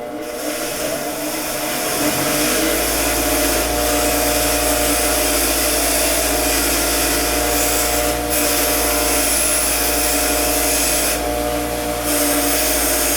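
Power-driven wire wheel spinning up over the first two seconds, then running steadily as it brushes the metal of a diecast car, with a couple of short breaks in the scrubbing hiss.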